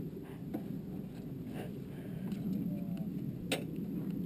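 Light clicks and knocks of a paramotor's metal frame and prop cage being handled on a vehicle hitch carrier, with one sharper click about three and a half seconds in, over a steady low rumble.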